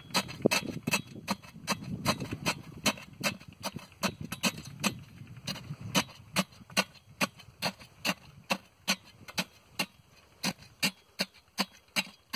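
Thin steel rebar rod jabbed repeatedly down into wet concrete around an iron angle-iron fence post, clinking against the metal about two to three times a second, with a duller low sound under the strokes in the first half. This is rodding the concrete to drive out air so it settles.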